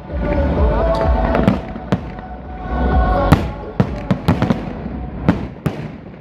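Aerial firework shells bursting in a display: a rapid series of about eight sharp bangs, some close together in pairs, over a continuous low rumble.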